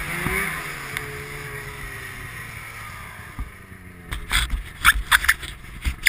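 Ski-Doo XP 600 snowmobile engine running and dropping away as the sled slows, fading out over the first few seconds. In the second half come a series of sharp, irregular knocks and crackles close to the microphone.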